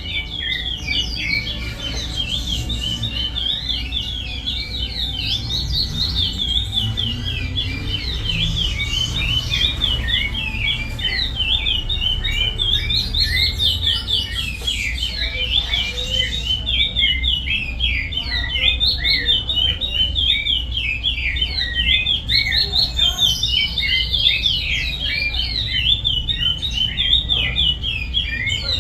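Curió (chestnut-bellied seed finch) singing a long, unbroken song of fast, rapidly repeated notes in the Paracambi song style, over a steady low rumble.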